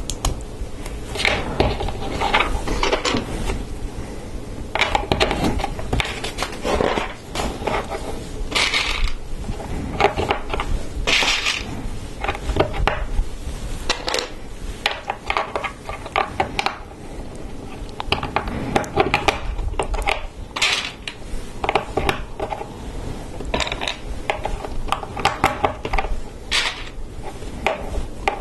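Plastic LEGO Technic pieces clicking and clattering as they are handled and friction pins and axles are pressed into beams, a busy irregular run of small sharp clicks.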